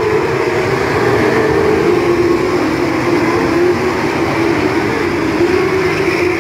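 Engines of a pack of TQ midget race cars running flat out together around a dirt speedway oval, a loud, steady drone wavering slightly in pitch as cars pass.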